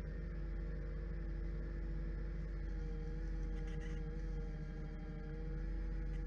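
Wood lathe running at steady speed with a yew bowl spinning on it: a steady motor hum with several held tones above it that waver slightly in pitch.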